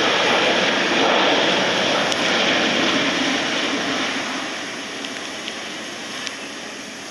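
Jet engines of a Boeing 737 freighter landing on a wet runway: a steady roar mixed with the hiss of spray from the tyres, fading from about four seconds in as the plane slows on its rollout.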